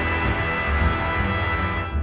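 Background music with a steady beat and held chords, dipping briefly near the end.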